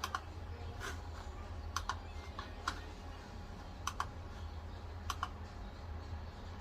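A few scattered clicks on a computer keyboard, irregularly spaced and several in quick pairs, over a steady low hum.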